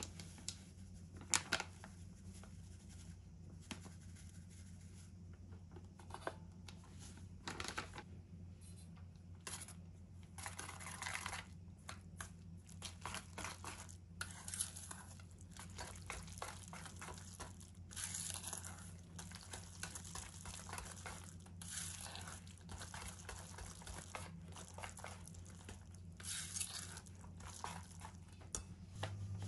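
A plastic bag crinkling as flour mix is poured into a stainless steel bowl, then a wire whisk scraping and stirring the thick flour-and-tofu mixture against the bowl in irregular strokes. A steady low hum underneath.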